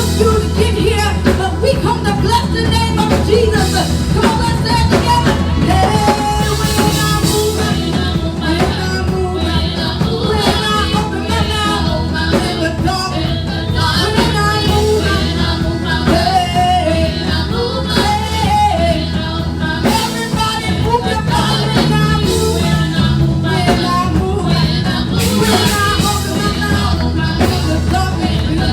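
Church worship music: singing over a band with a steady bass line.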